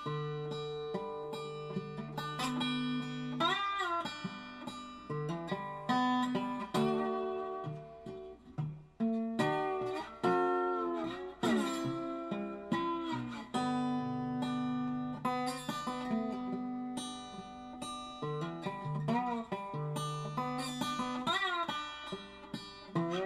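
Background music: acoustic guitar picking and strumming, with sliding, bent notes.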